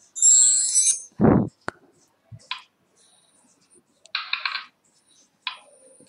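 Short computer sound effects from PowerPoint's transition sound list: a brief bright chime just after the start, then a dull thump and a few short clicks.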